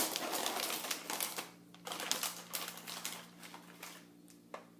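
Plastic cookie packaging crinkling and crackling as it is opened and handled. The crackling is dense at first, then thins to scattered clicks, with a louder snap near the end.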